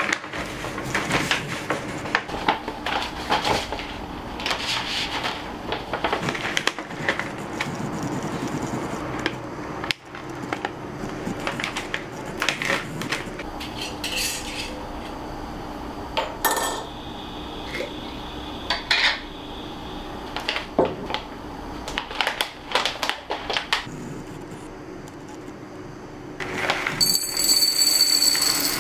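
Clinks and knocks of a glass storage jar and its lid being handled on a wooden table, with a paper coffee bag crinkling. Near the end coffee beans pour from the bag into the jar, a loud, steady rattling rush.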